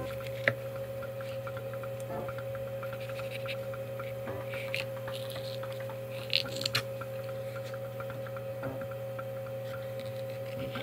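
A steady low electrical hum, with faint ticking and a few sharper clicks as a knife works along the bones of a marbled sole being filleted.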